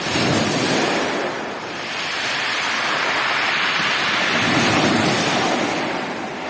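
Sea surf: waves breaking and washing in, swelling twice, about four seconds apart, with wind buffeting the microphone.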